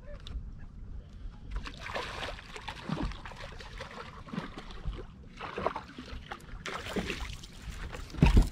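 Water splashing irregularly as a hooked striped bass thrashes at the surface beside the boat while being reeled in, ending with a loud knock as the fish is swung out of the water.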